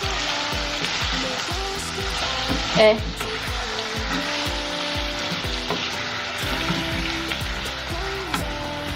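Food frying in a pan with a steady sizzle, over background music with a steady beat.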